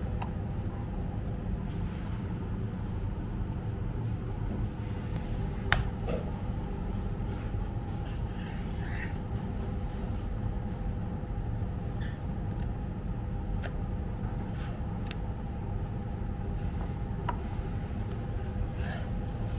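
Steady low rumble of room noise with a faint constant hum. A handful of light clicks and one sharp knock about six seconds in come from a knife on a wooden cutting board as a fish fillet is trimmed and sliced.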